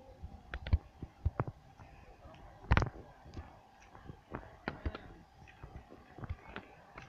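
Scattered sharp clicks and knocks at irregular intervals, the loudest about three seconds in, over a faint steady hum.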